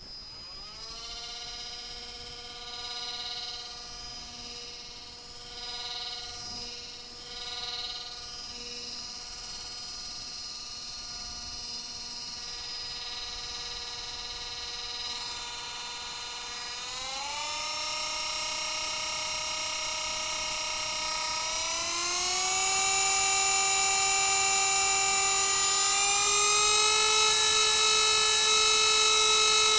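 Small multirotor drone's motors and propellers whining steadily, the pitch stepping up sharply twice, about two-thirds of the way through and again shortly after, and growing louder as the throttle rises.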